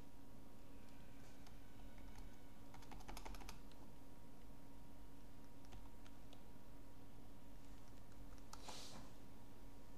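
Computer keyboard keys clicking as a search query is backspaced and retyped: a quick run of keystrokes about three seconds in, scattered single presses, and one louder, noisier stroke near the end, over a faint steady hum.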